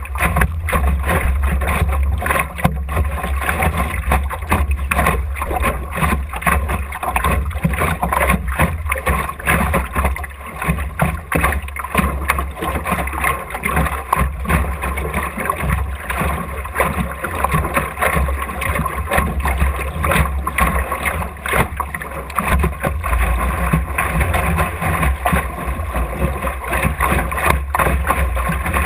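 Water slapping and splashing against the hull of an Optimist dinghy under sail, with many small knocks, over a steady low rumble of wind buffeting the bow-mounted camera's microphone.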